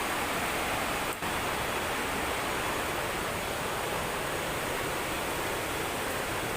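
Steady rushing of a waterfall, an even wash of falling-water noise with a brief dip in level about a second in.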